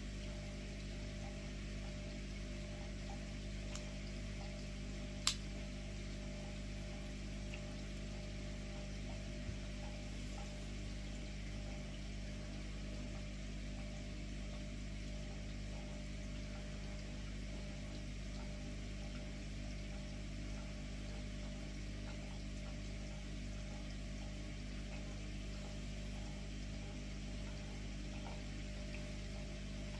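Steady low hum with a soft hiss over it, unchanging throughout, broken by one sharp click about five seconds in.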